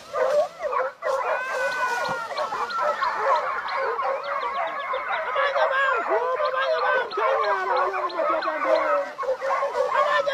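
A pack of hunting dogs baying, yelping and howling at once in a dense, overlapping chorus that never stops: dogs in full cry on a chase.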